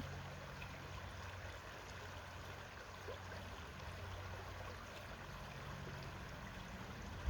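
Faint, steady outdoor background noise: an even hiss with a low hum beneath it.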